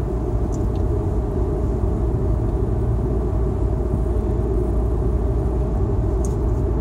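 Steady low rumble of a car driving at cruising speed, tyre and engine noise heard from inside the cabin.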